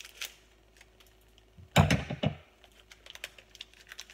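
Foil Pokémon booster-pack wrapper being handled and opened: a run of small crackles and clicks, with one louder crinkling bump about two seconds in.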